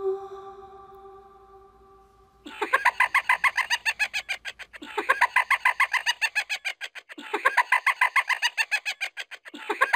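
A high-pitched, cackling cartoon laugh sound effect, looped: about four identical bursts of rapid 'ha-ha' pulses, each about two seconds long. It follows a sustained singing-bowl-like music tone that fades out over the first couple of seconds.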